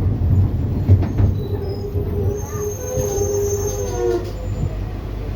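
Bus running with a steady low engine and road rumble; about a second and a half in, a squeal sets in, wavering slightly, with a faint high whine above it, and dies away around four seconds in.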